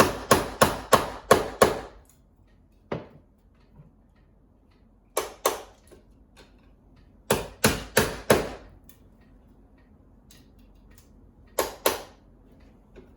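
Hammer tapping on wooden window trim in quick runs of sharp strikes, about three a second, with pauses between runs, working loose a part held fast by old paint.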